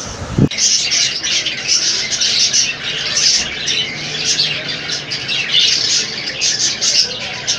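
Budgerigars chattering: a dense stream of many overlapping quick, high calls and chirps, beginning about half a second in.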